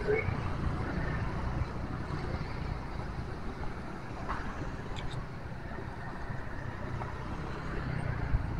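Street ambience: light traffic passing, including a motorcycle, over a steady low rumble.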